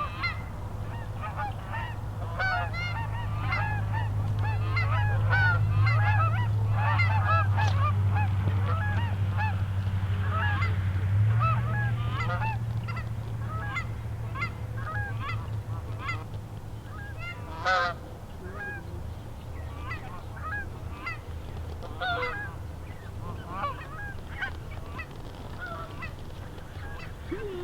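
A flock of geese honking as they come in, many overlapping calls. A steady low hum runs under them for roughly the first half.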